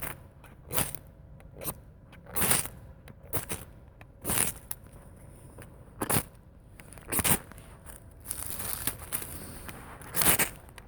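Leatherman Surge saw blade scraped down a ferro rod in about eight short, rasping strikes, roughly one every second or two, with one longer scrape near the end. The saw blade flexes and bounces on the rod as it strikes.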